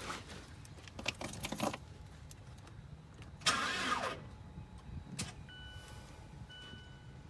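Start attempt on a 2015 Mazda 3 2.0 L with a freshly replaced starter: a few clicks, then one short burst about three and a half seconds in that falls in pitch, and the engine does not keep running. A dashboard warning chime then beeps about once a second. The failed start is taken for a battery that has lost charge.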